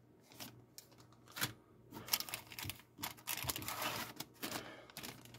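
Clear plastic bags holding model-kit sprues crinkling and rustling as they are handled, with irregular light clicks and crackles.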